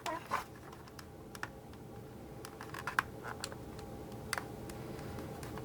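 Scattered light clicks and taps of hard plastic as a clear toy canopy is pressed and worked into shape by hand.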